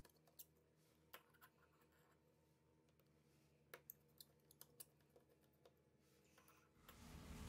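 Near silence with a few faint, sharp clicks of a precision screwdriver working the small screws on a smartphone's motherboard.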